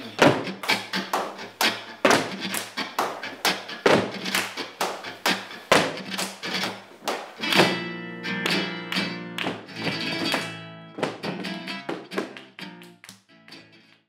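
Flamenco music: a rapid run of sharp percussive strikes with guitar, dying away over the last couple of seconds.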